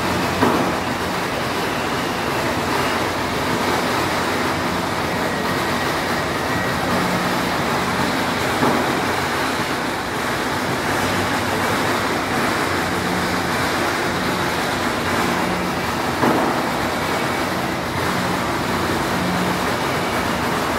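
Steady, dense din of a street temple procession: a continuous noisy wash with a few sharper knocks, about half a second in, near nine seconds and near sixteen seconds.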